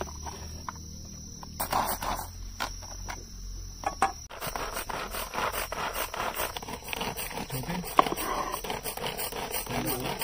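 Onions being chopped on a board: a few scattered cuts, then from about four seconds in a fast, steady run of short chopping strokes. Insects keep up a steady high chirping underneath.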